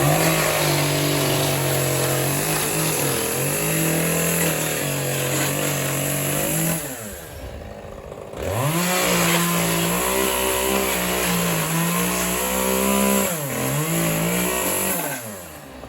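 Two-stroke chainsaw running at high revs in two long runs, dropping back for about a second and a half midway before revving up again. Its pitch sags now and then, then it eases off near the end.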